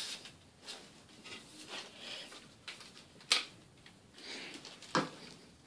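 Zeikos Pro Series tripod being handled fully extended: scattered light clicks and rustling, with two sharper knocks about three and five seconds in.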